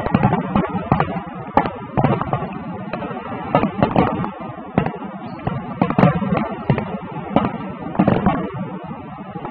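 Aerial fireworks shells bursting in a dense barrage: an irregular string of sharp bangs and crackles, several a second.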